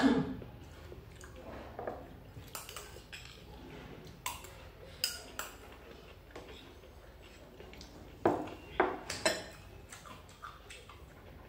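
Metal spoon clinking and scraping against a small ceramic bowl: scattered sharp clinks, with a quick run of about four clinks a little over two-thirds of the way in.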